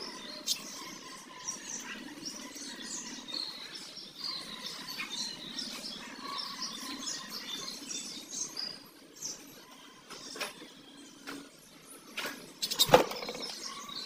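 Budgerigars in a cage chirping and chattering softly, many short high chirps overlapping. A sharp knock near the end.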